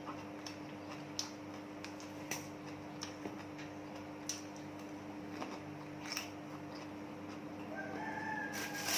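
A rooster crowing once near the end, a single held call of about a second. Under it run a steady hum and scattered sharp clicks.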